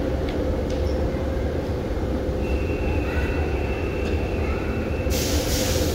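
Brussels metro U5 train standing at the platform with its doors open, its equipment humming steadily. About five seconds in, a loud hiss starts as the doors begin to close.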